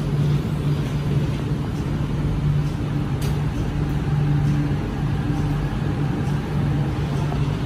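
MTR Kwun Tong Line Q-train pulling out of an underground station behind platform screen doors: a steady rumble of the moving train with a low hum that swells and fades.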